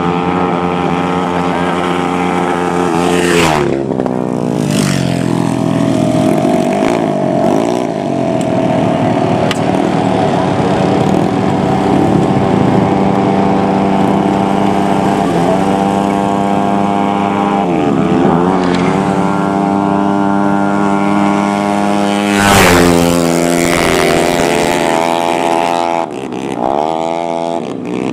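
Racing motorcycle engine running hard at high revs, its pitch dipping and climbing back up several times.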